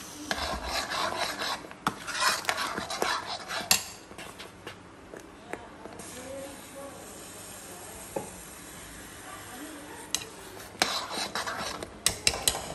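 A spatula scraping and stirring thick masala in a steel kadhai and scraping paste out of a steel container, with sharp metal clinks against the rims. The scraping is busiest in the first few seconds, eases off in the middle, and picks up again with a run of clinks near the end.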